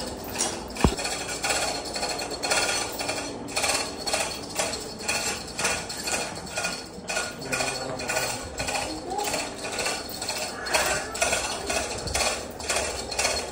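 Hand chain of a manual chain hoist clinking and rattling rhythmically, about two clinks a second, as it is pulled to move a suspended engine; a single low thump about a second in.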